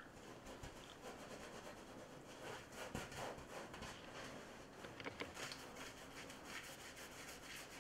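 Faint scraping and rubbing of a palette knife spreading paint across a canvas on an easel, with a few light taps about three and five seconds in.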